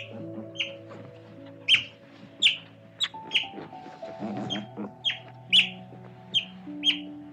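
Otters chirping: about a dozen short, sharp, high-pitched chirps, irregularly spaced, over steady background music.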